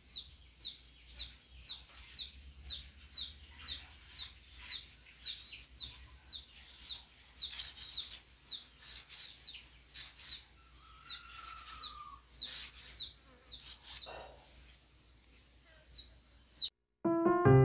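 A small bird peeping over and over, short falling high notes about two a second, with fainter knife-scraping strokes on a fibre strip now and then underneath. The peeping cuts off just before the end and piano music starts.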